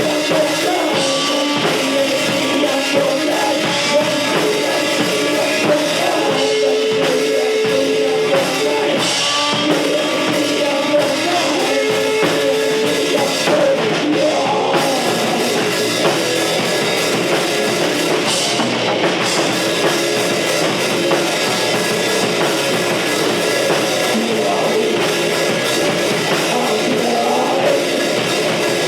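Rock band playing continuously and loudly, with a drum kit and other instruments.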